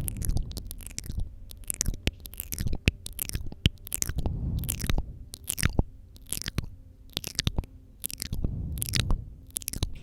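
Wet mouth sounds close to the microphone: quick, irregular clicks and smacks of lips and tongue, the ASMR 'spit painting' trigger, with muffled low rumbles at times.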